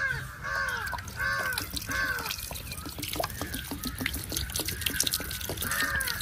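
Water poured from a plastic bottle splashing and trickling over a hand onto soil, dripping in the middle of the stretch. A bird calls in short arched notes, four times in the first two seconds and again near the end.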